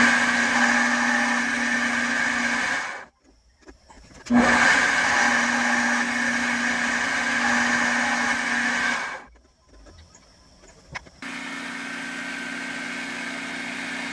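Metal lathe running, its cutting tool turning a small metal bushing: a steady motor hum under the hiss of the cut. It stops abruptly about three seconds in and again about nine seconds in, returning each time, quieter and steadier the second time.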